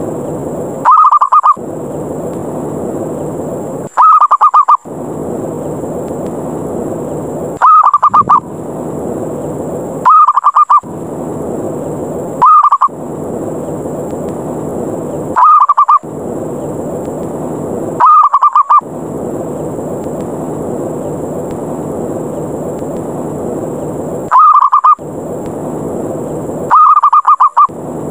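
Zebra dove (perkutut) lure call: nine short, rapid staccato coos, mostly two to three seconds apart with a longer pause near the end. This is the rough 'ngerot' challenge coo that invites rival doves to fight and draws wild perkutut down. A steady rushing background noise fills the gaps and drops out for each call.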